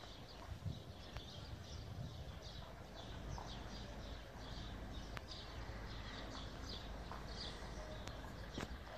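A bird chirping over and over, short high chirps about twice a second, over a low steady outdoor rumble.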